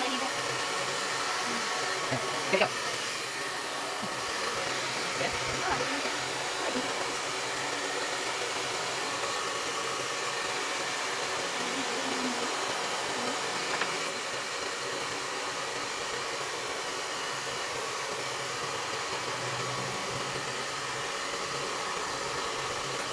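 Handheld hair dryer blowing steadily on a freshly bathed dog's wet fur.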